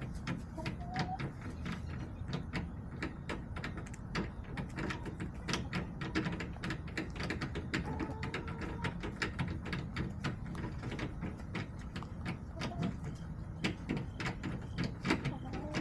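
Backyard hens pecking, an irregular stream of sharp taps several times a second, with a few short, soft clucks over a steady low rumble.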